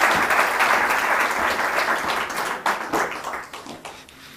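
Audience applause: many people clapping together, steady at first, then thinning out and fading in the second half until only a few scattered claps remain near the end.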